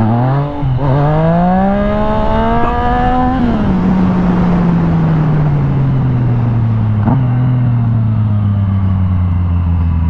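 Yamaha FZ-09's inline-three engine under hard acceleration: a quick throttle blip, then a pull with the pitch rising for about three seconds. The throttle then closes and the engine note drops and falls slowly as the bike slows. A single click about seven seconds in, with wind rushing throughout.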